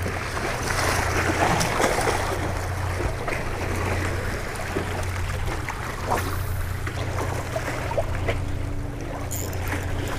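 Waves washing and splashing against the rocks of a jetty, with a steady low wind rumble on the microphone. From about eight seconds in, a spinning reel is cranked, a faint steady whir.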